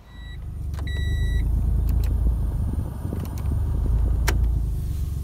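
A low rumble comes on at once and holds steady. A brief beep and then a longer beep sound about a second in, and a few sharp clicks follow.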